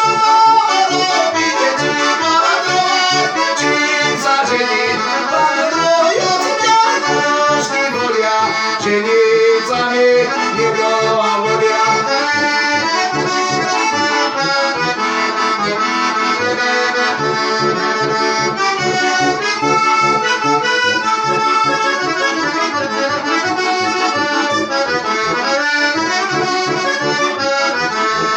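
Heligonka, a Slovak diatonic button accordion, playing a folk tune: a melody with chords over a steady pulsing bass.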